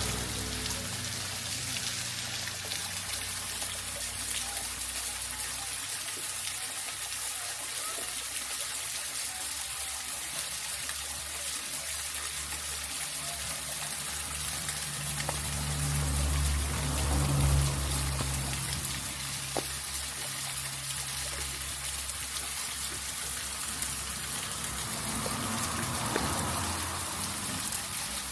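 River water flowing and trickling, a steady hiss, with a low rumble swelling briefly a little past the middle.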